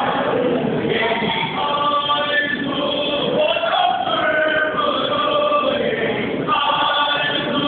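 A group of voices chanting a devotional song together, continuous and loud, the sung lines rising and falling.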